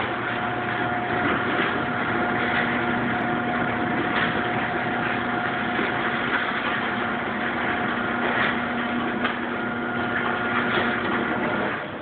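Overhead garage door opener running as it raises the door: a steady motor hum with a steady whine. It cuts off near the end, as the door reaches fully open.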